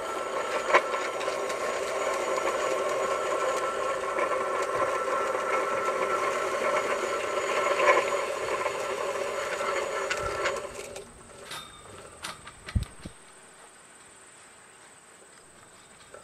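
Husky Superwinch worm-drive winch drum spinning free in neutral as its cable is pulled off by hand: a steady whir with several fixed tones that stops abruptly about eleven seconds in. A few clicks and a single knock follow.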